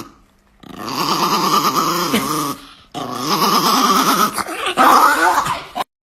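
Small chihuahua growling in two long, wavering growls, the second starting about three seconds in, its pitch bending up and down.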